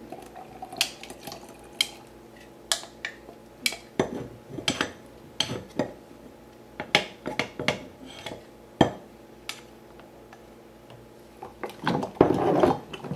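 Glass clinks and knocks as liquid is poured from a glass measuring cup into a glass mason jar. Near the end, a utensil stirs inside the jar, giving a louder patch of scraping and clinking against the glass.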